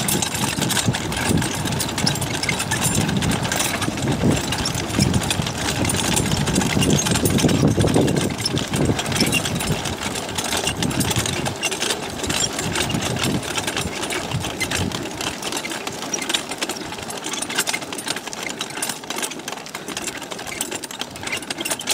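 A kart rolling downhill on a bumpy dirt track: tyres rumbling over the ground and the frame rattling. The noise is loudest in the first half and eases off after about ten seconds.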